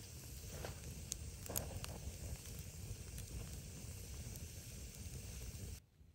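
Log campfire burning, a low steady rush of flame with a few sharp crackling pops. The sound drops away abruptly near the end.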